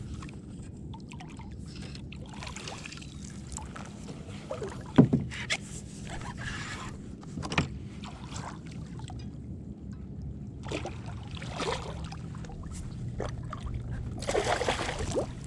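Knocks and handling noises in a kayak while a large redfish is landed and netted. A sharp knock about five seconds in is the loudest, with scattered clicks and a burst of noisy commotion near the end.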